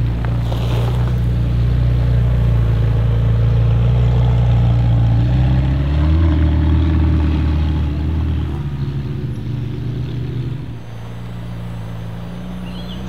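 McLaren 720S twin-turbo V8 running at low revs with a deep, steady drone. About six seconds in, the revs rise briefly, and near the end the engine sound is quieter.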